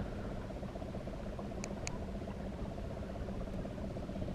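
Bow-mounted electric trolling motor running steadily, pushing the boat along with an even hum. Two short high ticks sound a little under two seconds in.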